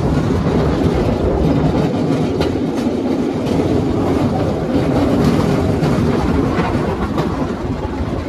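Small open rail car rolling along narrow-gauge track: a steady rumble of wheels on rail, with irregular clacks as the wheels cross rail joints. A loud clunk comes right at the start.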